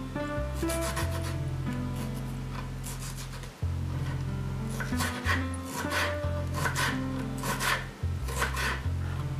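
A kitchen knife cutting cherry tomatoes into small pieces on a wooden cutting board, repeated short strokes of the blade against the wood, over background music.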